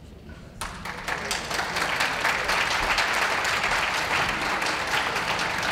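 Ringside audience applauding, starting just over half a second in and quickly building to steady clapping.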